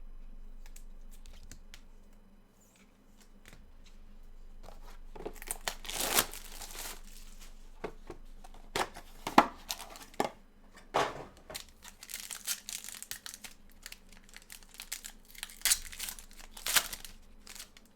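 Plastic wrapping and packaging of a trading-card box being torn open and crinkled by hand, in a run of crackling rips with a few sharp snaps, starting a few seconds in.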